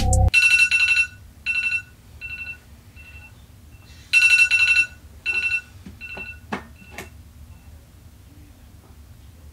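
Phone alarm going off: a high electronic beep repeating in short bursts that fade away, then start again loud about four seconds in and fade once more. A couple of soft knocks come near the middle.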